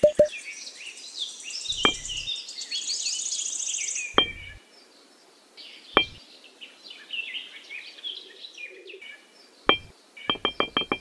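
Birds chirping and twittering, with a high trill around the middle. A few single sharp clicks are heard, then a quick run of clicks near the end.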